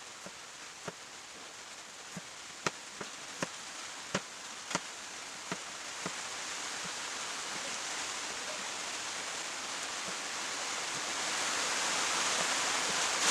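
Steady rain hiss that slowly grows louder, with about ten sharp, irregular taps in the first six seconds.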